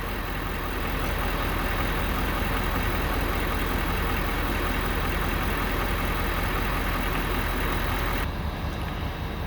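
Ford F550 dump truck engine idling steadily, a little quieter over the last second or so.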